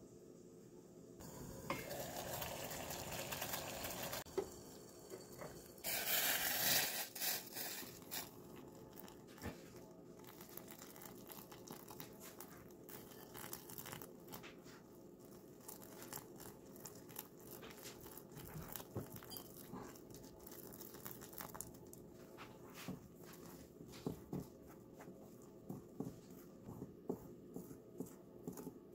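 Liquid poured into a bowl of flour in two pours, the second louder, then wooden chopsticks stirring the flour and liquid in a ceramic bowl, a long run of small irregular clicks and scrapes against the bowl.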